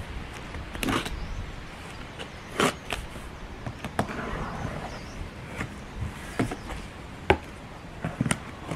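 Cardboard box being handled and opened by hand: scattered knocks, scrapes and rustles of the cardboard and its flaps, the sharpest knock about seven seconds in.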